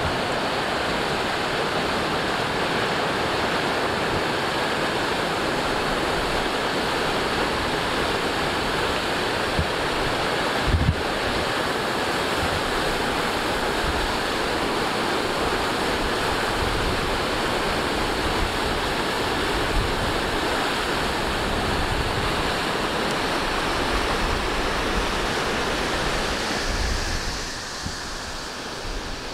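Rushing water running steadily, with low wind buffeting on the microphone. The sound drops in level about 27 seconds in.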